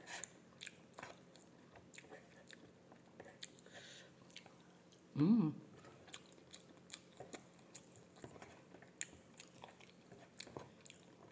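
Close-miked chewing and mouth noises of a person eating rice and fried tempe by hand, with small clicks and smacks throughout. A short hummed 'mm' comes about five seconds in.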